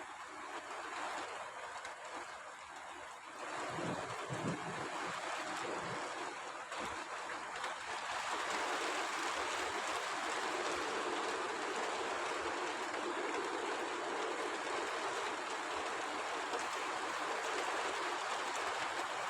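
Rain falling, not too heavy, as an even hiss that grows louder and fuller about eight seconds in. A brief low rumble sounds a few seconds in.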